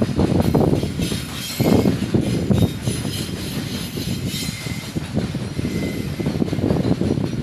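Long container freight train's wagons rolling past, rumbling and clattering on the rails, with a faint high squeal from the wheels; the noise eases a little after about three seconds.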